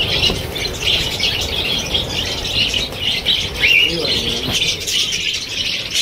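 A flock of budgerigars chattering and chirping without a break, with wings flapping as birds take off from the perch.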